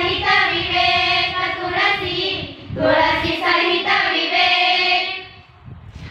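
A group of teenage girls singing a doha together without accompaniment: two sung phrases with long held notes, the second dying away about five seconds in.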